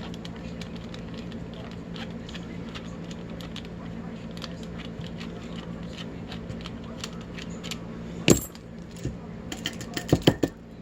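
Small metal parts of a disassembled Abus padlock clicking and clinking as they are handled, with faint ticks throughout, one sharp clink about eight seconds in and a quick run of clinks near the end.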